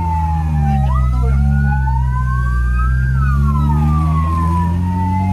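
Vehicle sirens wailing, their pitch sweeping slowly up and down over a couple of seconds, two of them out of step, over the steady low hum of a vehicle engine running.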